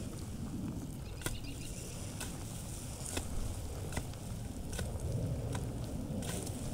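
Footsteps crunching on dry dirt and brush as a person climbs a steep slope, sharp crackles about once a second over a steady low wind rumble on the microphone.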